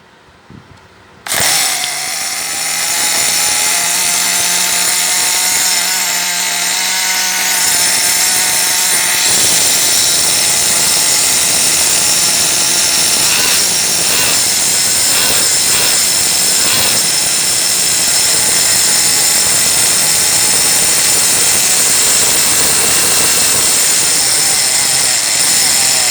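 Small two-stroke nitro engine of an HPI MT2 RC truck, drill-started from cold, starting about a second in and running loud and buzzy. It runs cleanly, showing no ill effect from sitting unused for a long time.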